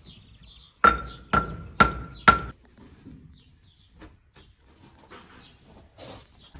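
Four sharp hammer strikes about half a second apart, each with a short ringing tone.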